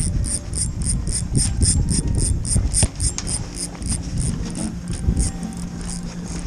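Spinning reel under load from a hooked fish, its mechanism ticking evenly about three times a second, over loud rumbling handling noise on the body-worn camera.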